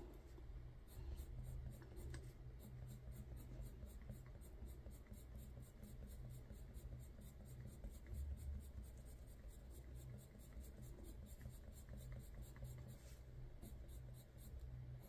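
Faint, steady scratching of a Prismacolor coloured pencil shading on paper, over a low steady hum.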